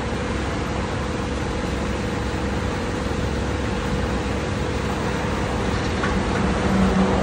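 New Holland tractor's diesel engine running steadily at idle, a constant hum; about six and a half seconds in a deeper hum joins and the sound grows a little louder.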